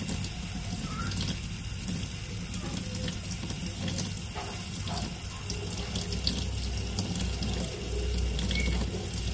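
Thin stream of water running steadily from a kitchen tap into a stainless steel sink, with a few faint clicks.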